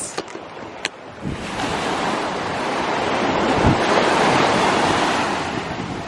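Surf breaking and washing up a sand beach: about a second in, a wave rushes in and builds to a swell, then eases off a little, with wind on the microphone.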